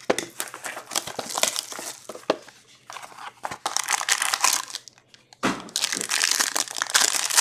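Packaging of an Ultimate Collection hockey card box crinkling and tearing as the box and its pack are opened by hand. It comes in rustling bursts with a short break about five seconds in.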